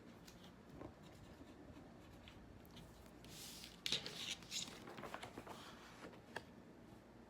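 A child writing a word out by hand: faint scratching strokes of the pen or pencil, busiest from about three to six seconds in.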